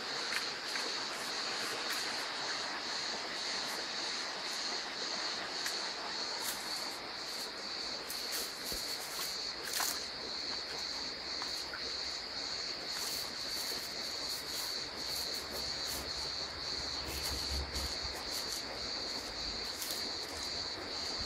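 Steady high-pitched trilling of an insect chorus, crickets, with scattered sharp clicks. A low rumble of wind on the microphone comes in over the last few seconds.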